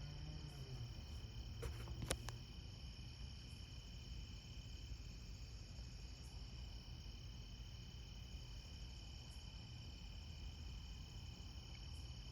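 A steady chorus of night insects, crickets, chirring at two high pitches throughout, over a faint low hum. There is one sharp click about two seconds in.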